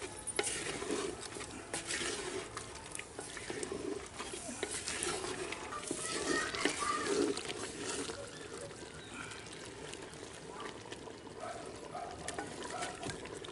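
Wooden spatula stirring chicken pieces through wet masala in a clay pot: irregular scraping against the pot, with clicks and wet sloshing of the liquid.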